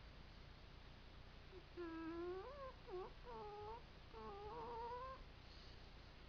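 A sleeping pet whimpering in a dream: a few short, whiny cries that glide up and down in pitch, starting about a second and a half in and stopping about five seconds in.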